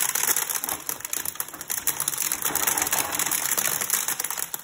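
Hand-cranked corn sheller being turned as an ear of corn is fed through it, the kernels stripped off the cob with a rapid, dense clatter.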